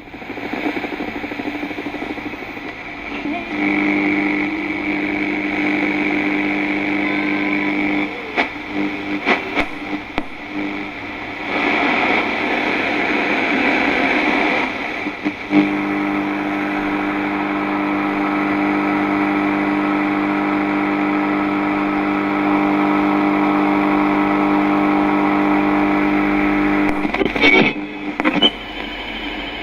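Radio noise: steady hissing static with a buzzing interference hum that sets in a few seconds in, drops out for a while with crackles and clicks, then returns and holds until a burst of crackling near the end.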